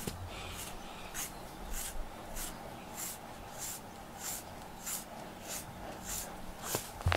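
A pet brush drawn through a cat's thick fur in steady, even strokes, each a short scratchy swish, a little under two a second. A dull bump near the end.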